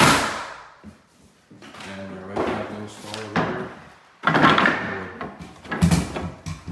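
Several sudden thuds, the loudest at the start and about four seconds in, from closet doors being opened and shut in a bare room. Indistinct talking comes between the thuds.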